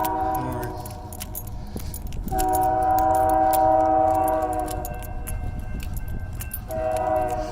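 Multi-chime air horn of a GE freight locomotive sounding a chord in long blasts: one ends about half a second in, a long one follows after a short gap, and another starts near the end, the pattern of a grade-crossing signal. Sharp ticks run behind it throughout.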